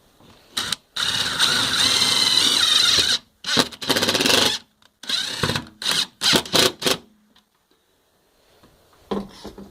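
Impact driver running in bursts, driving a self-tapping Tek screw through plastic into the plate. There is one long run of about two seconds, then a string of shorter bursts, as the screw is driven in, backed out once it has cut its pilot, and driven back in.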